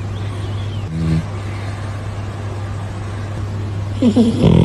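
A pet snoring: two snores about three seconds apart, over a steady low hum.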